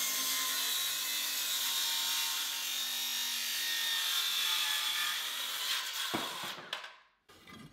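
Makita 6.5-inch cordless circular saw cutting a 45-degree bevel through a 1.5-inch softwood board, a steady cut. About six seconds in the blade leaves the wood and the saw winds down to a stop.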